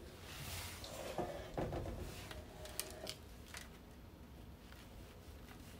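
Faint rustling and a few light ticks of crumb topping being scooped by hand and pressed onto the frosted sides of a cake, with loose crumbs dropping onto a wooden board. The rustling is a little stronger in the first couple of seconds.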